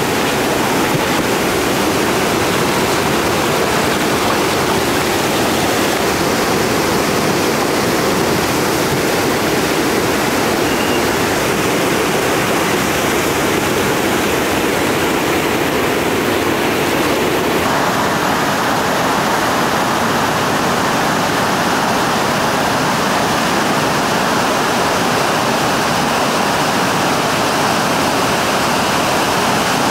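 Loud, steady rushing roar of a whitewater rapid pouring over a rock ledge into a foaming hole. A little past halfway the rush changes abruptly to a brighter, hissier tone.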